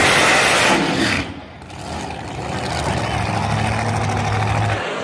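Supercharged 1959 DeSoto Pro Mod drag car engine run at full throttle: a loud blast in the first second. After a short drop, it is heard from farther off as the car runs down the strip, with a steady low drone that cuts off suddenly near the end.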